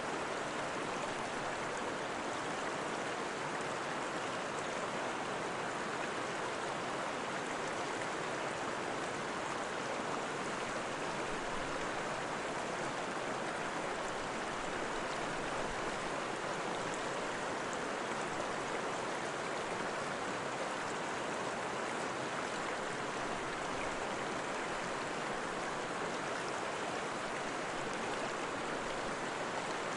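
Steady rushing of running water, like a stream, as an even hiss with no breaks or changes.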